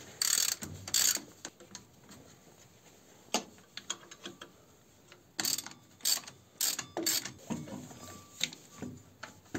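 Ratchet wrench clicking in short spells as the bolts holding a tractor generator are loosened, with scattered metallic clicks and knocks as the generator is worked loose from its mount.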